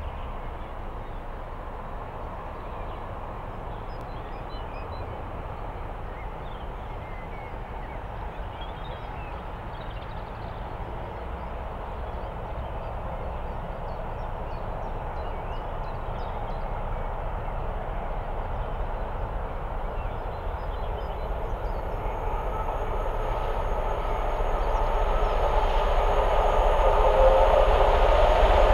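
A steam-hauled mainline train approaching, its steady rumble and rush of noise growing gradually louder. A whistle starts to sound near the end.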